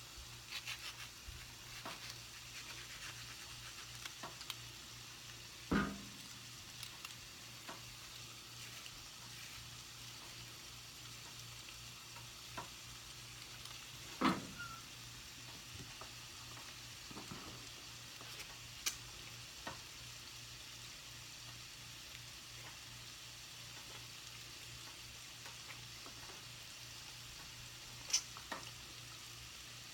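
Food sizzling steadily in a frying pan, with scattered knocks and clicks of a utensil against the pan; the two loudest knocks fall about six and fourteen seconds in.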